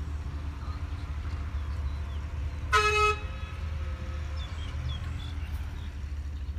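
Dump truck's diesel engine idling with a steady low rumble, and one short horn toot about three seconds in.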